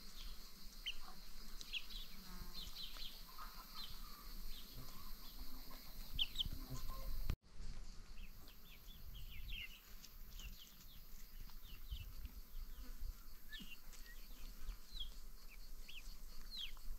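Outdoor farmyard birdsong: many short, high chirps repeat throughout, with a few low clucks from free-range hens in the first few seconds. The sound drops out for an instant about seven seconds in.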